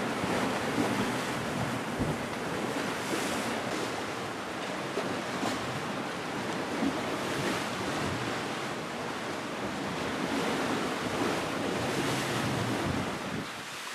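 Sea waves washing on a rocky shore, with wind buffeting the microphone in steady gusts.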